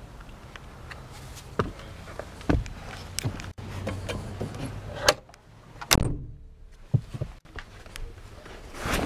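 Rear door of a 1950 Chrysler Crown Imperial limousine being handled: a series of knocks and clunks, the loudest two about five and six seconds in.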